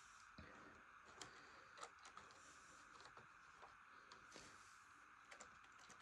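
Near silence, with a few faint, scattered clicks and taps from a model train being handled.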